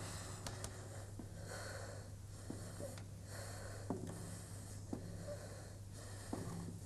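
Slow, regular breathing, with a few faint clicks over a steady low hum.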